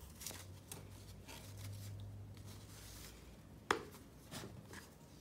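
Faint rustling and sliding of a fabric ribbon being pulled loose from a cardboard gift box as hands handle it, with one sharp click about two-thirds of the way through.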